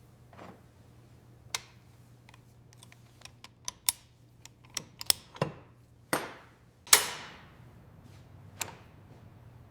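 Irregular light clicks and taps of tools and metal parts being handled at a workbench, with two louder clanks that ring briefly about six and seven seconds in, over a low steady hum.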